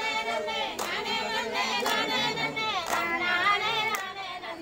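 A group of women singing a folk song together, with a sharp hand clap about once a second keeping time for their circle dance.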